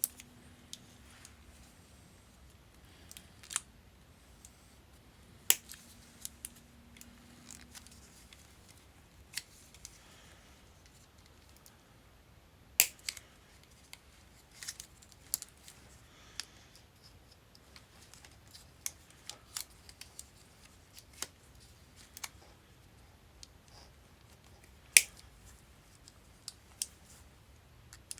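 Irregular sharp clicks and snaps, one every second or few, of brittle 40-year-old hard plastic sheathing being cut and cracked off an old Honda's wiring harness.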